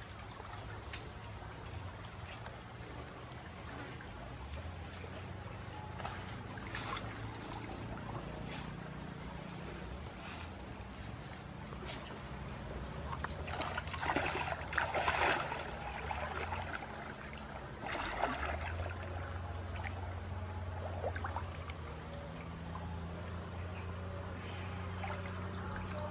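Water splashing and trickling as a person wades waist-deep in a river, in bursts loudest around the middle, over a steady high insect drone.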